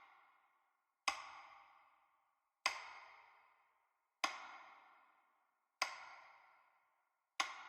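A struck, ringing note repeated evenly about every second and a half, five times, each one dying away before the next.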